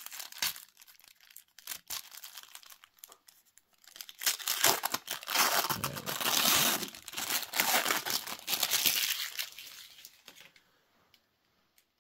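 A trading-card deck's wrapping being torn open and crinkled by hand: a few light handling clicks, then a dense stretch of loud crinkling and tearing from about four seconds in that dies away near the end.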